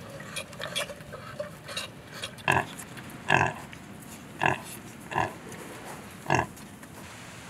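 Domestic pigs grunting: five short, loud grunts spaced about a second apart, starting a couple of seconds in, after a stretch of faint clicking.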